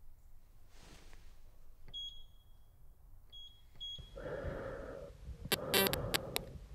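Three short, high electronic beeps, one about two seconds in and a quick pair about a second and a half later, followed by a hiss of static that breaks into irregular crackling, glitchy bursts near the end.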